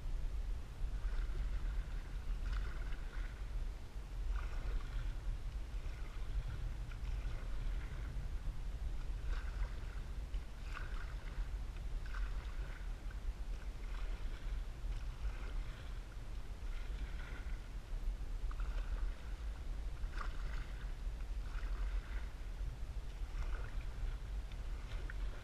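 A canoe being paddled across calm water: paddle strokes and water splashing against the hull about once a second, over a steady low rumble.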